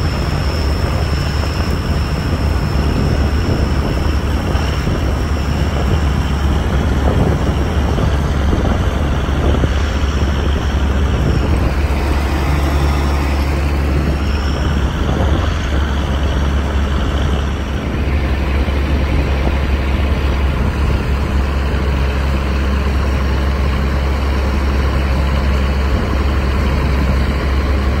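Allis-Chalmers 7030 tractor's diesel engine running steadily under load while it pulls a John Deere 566 round baler through the windrows, a constant low rumble.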